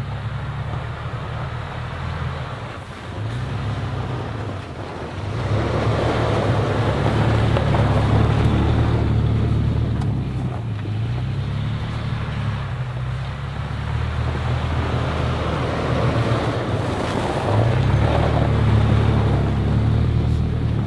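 Toyota FJ Cruiser's 4.0-litre V6 engine running while driving, its pitch rising and falling with the throttle, over a steady rush of tyre and road noise. The noise swells louder about five seconds in and again near the end.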